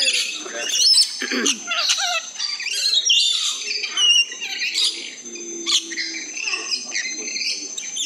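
A flock of small parrots chattering with many short, shrill chirps and squawks, close by. A thin, steady high-pitched whine runs behind them.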